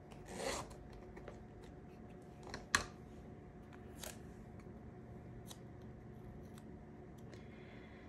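Light handling of paper sticker sheets and washi strips on a desk: a short rustle near the start, a sharp click a little under three seconds in, and a few fainter ticks.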